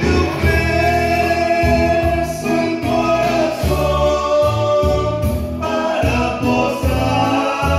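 A man singing a slow song into a microphone, amplified through a PA speaker, with long held notes over a musical accompaniment.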